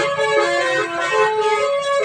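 Bus 'telolet' basuri horn playing a melody: several horn notes sounding together, stepping from pitch to pitch every fraction of a second, over a low engine rumble.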